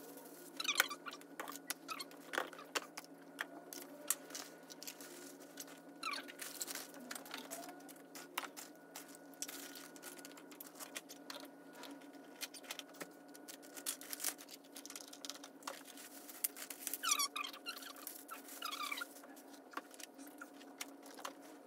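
Bags and clothes being handled: scattered rustles, clicks and squeaks throughout, over a steady hum.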